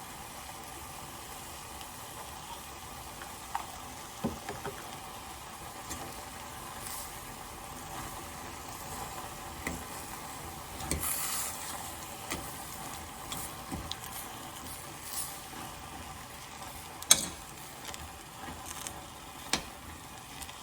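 A utensil stirring chicken, bok choy and cream in a pot over the heat: scattered knocks and scrapes against the pot over a steady low sizzle, with the sharpest knocks about 17 and 19 seconds in.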